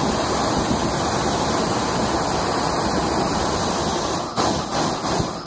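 Propane torch burning at full flame: a loud, steady rushing hiss, which dips and wavers several times from about four and a half seconds in.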